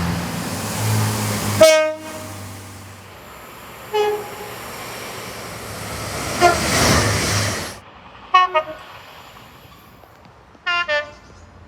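Short train horn toots. The loudest blast comes about two seconds in, with single toots following over the rumble of a moving train. The rumble cuts off abruptly about eight seconds in, and quieter quick double toots come after it.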